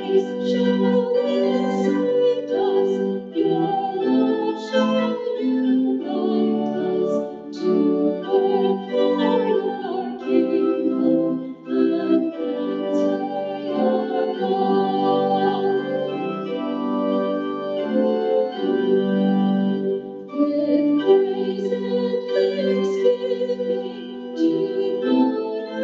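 Organ playing a hymn in held chords that change every second or so.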